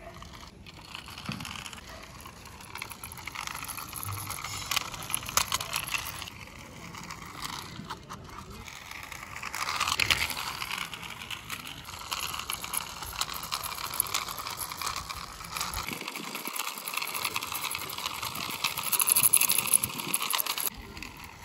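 Toy van's small wheels rolling and scraping over rough concrete as it is pushed by hand: a gritty crunching with scattered crackles that stops suddenly near the end.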